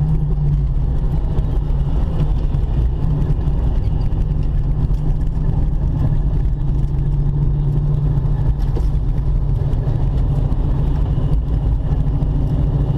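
Supercharged V8 engine of a 2004 Mustang Cobra running steadily at low revs, a constant low drone with no revving.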